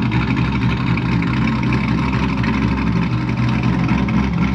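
C5 Corvette's 5.7-litre LS V8 running at a steady low idle as the car creeps slowly forward, with no revving.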